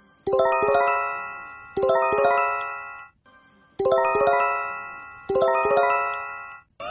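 Emergency alert attention chime: a run of struck chime notes that ring and fade, played twice with a brief silence between.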